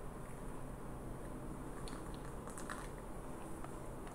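Quiet room tone: steady microphone hiss and hum, with a few faint, short clicks around the middle.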